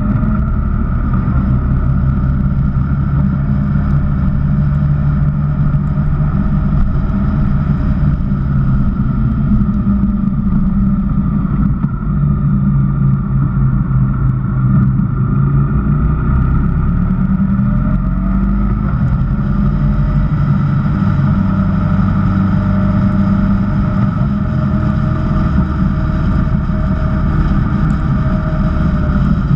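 Honda VFR1200X Crosstourer's 1237 cc V4 engine running under way, heard alongside road and wind noise. The engine note drops around the middle as the bike eases off for a hairpin bend, then rises and holds steady again.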